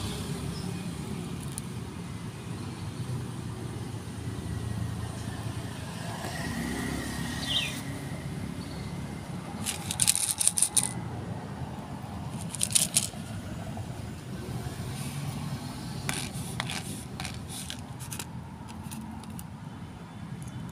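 Low, steady rumble of street traffic. Clusters of sharp clicks and crackles break in about halfway through, again shortly after, and a few more near the end.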